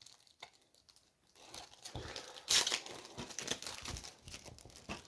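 Plastic shrink-wrap being ripped and crinkled off a DVD box set. It starts after about a second and a half of quiet, with a sharp tear about two and a half seconds in and crackling after it.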